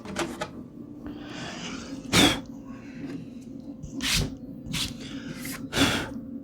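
Four short blasts of air puffed into the iMac's vent channel to blow out dust, about 2, 4, 5 and 6 seconds in, the first and last loudest, over a steady low hum.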